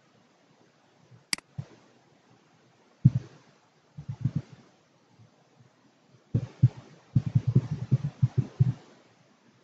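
One sharp mouse click about a second in, then computer keyboard keystrokes in short runs, with a fast run of typing near the end.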